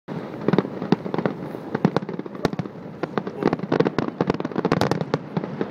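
Fireworks display: aerial shells bursting in a rapid, irregular string of bangs and crackling pops, several a second.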